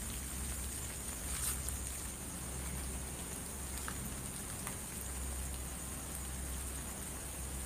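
Steady rain falling, an even hiss with a few faint drop ticks, over a constant high-pitched trill of crickets.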